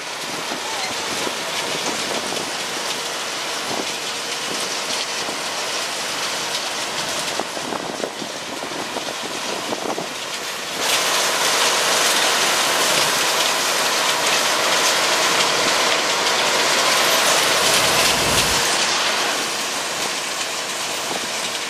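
Asphalt mixing plant running: a steady, hiss-like roar. It grows louder about eleven seconds in and eases back near the end.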